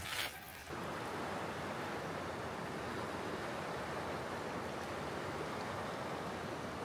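Steady rush of flowing river water, starting abruptly about a second in.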